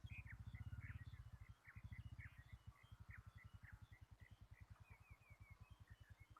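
Faint bird chirping: many short high notes, some sliding, over a fast low throbbing pulse of about ten beats a second.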